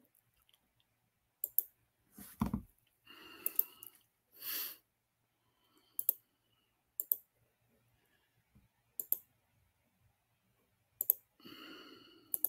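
Computer mouse clicks: about six sharp clicks spaced a second or two apart, several heard as quick doubles. Between them come a few soft breathing noises and one dull thump about two seconds in.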